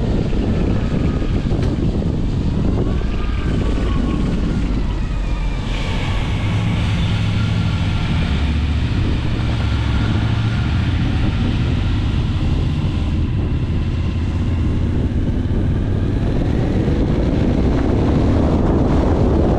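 An engine running steadily, with wind rushing over the microphone.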